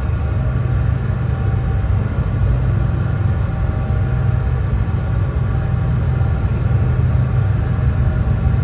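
Steady brown noise: an even, deep rumble with most of its weight in the low end and a few faint steady tones above it.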